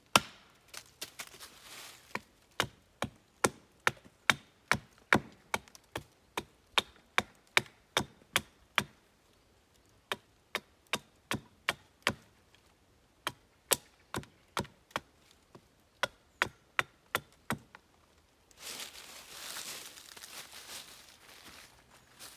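A hatchet or axe chopping wood in quick, regular strikes, about two a second, with a couple of short pauses. It is followed by a few seconds of rustling near the end.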